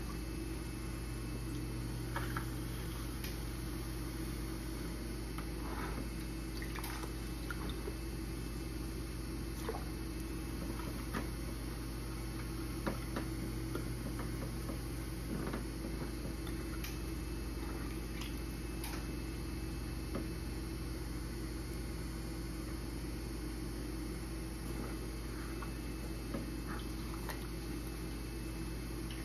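Electric potter's wheel running with a steady hum as the wheel head spins, while wet clay is centered and worked by hand on it, giving soft wet rubbing sounds and occasional small clicks.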